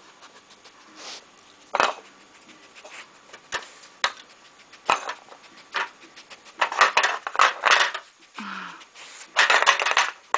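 Pieces of a dog treat-puzzle toy clacking and rattling as a fox knocks them about: scattered single knocks at first, then quicker clusters of clatter in the second half. A brief low falling sound comes about eight and a half seconds in.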